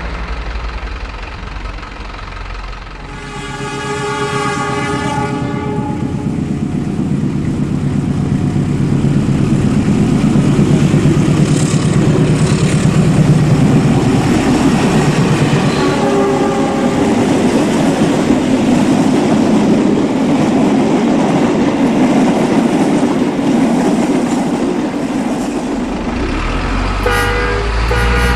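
Train horn sounding for about two seconds, then the rumble and clatter of a train rolling past, building and easing off, with shorter horn blasts about halfway through and near the end.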